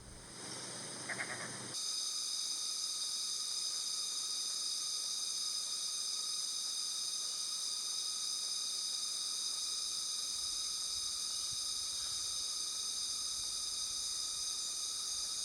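Steady chorus of forest insects: several high-pitched ringing tones sounding together at an even level, setting in after a softer hiss about two seconds in.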